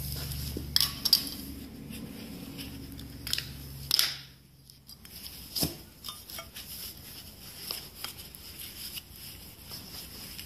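Scattered metallic clinks and knocks, over a low steady hum that stops about four seconds in.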